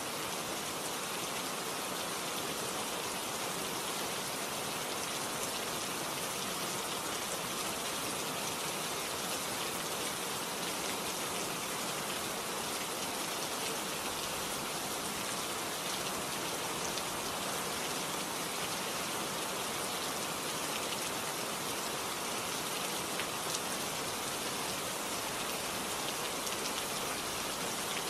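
Steady rain sound: an even hiss with faint scattered ticks, unchanging throughout, laid over the pictures as a background track.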